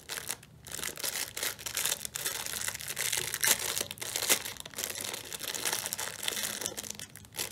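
Packaging of a string of fairy lights crinkling as it is handled, an irregular run of small crackles and rustles.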